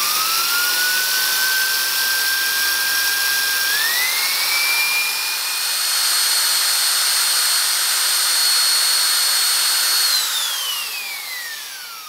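Electric drill with a 1 cm wood bit boring a hole into a wooden board: a loud, steady motor whine over the noise of the cut. The pitch steps up about four seconds in, and from about ten seconds in the trigger is released and the motor winds down with a falling whine.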